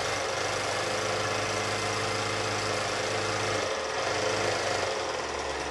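Mother household sewing machine running steadily to wind a bobbin, the motor hum and the mechanism's rattle going together; the newly repaired bobbin winder is now winding the thread evenly. The low hum drops out about three and a half seconds in, while the rattle carries on.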